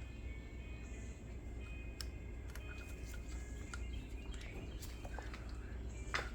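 Faint scattered clicks and taps of small parts and hand tools being handled while fitting a carburetor and fuel lines on a string-trimmer-style edger, with a sharper click about six seconds in, over a low steady hum.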